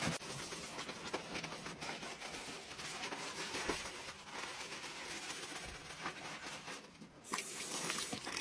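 Sponge scrubbing tile and a ceramic sink, a steady rough rubbing and scratching. About seven seconds in the scrubbing stops and a tap starts running into the sink.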